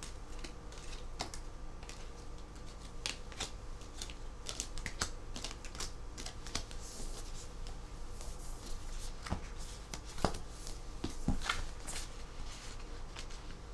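Photocards being handled and shuffled by hand: irregular light clicks and ticks of card stock tapping and sliding together.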